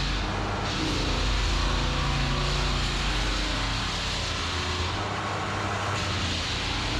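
Floor sanding machine running steadily over pine floorboards: a constant motor hum under an abrasive rushing noise.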